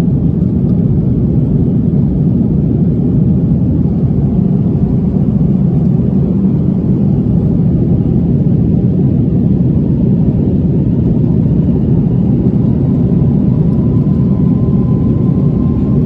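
Airliner cabin noise: a steady low rumble of engines and rushing air heard from inside the passenger cabin.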